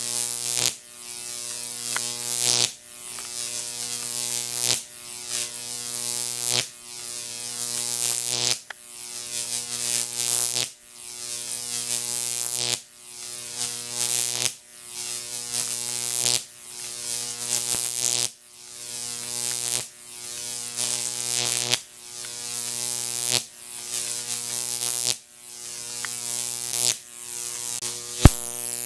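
Electric arc of a Jacob's ladder fed by a 15,000-volt neon sign transformer, buzzing loudly between copper rod electrodes. In a cycle of about two seconds, repeated over and over, the buzz grows louder as the arc climbs and stretches, then cuts off abruptly as it breaks and re-strikes at the bottom. A single sharp click comes near the end.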